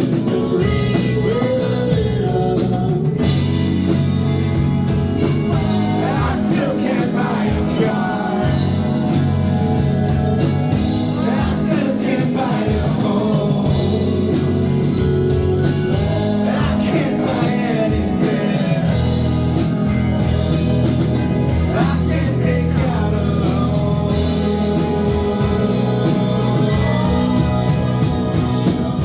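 Live band performing a song: a singer over a full band with a steady drum beat.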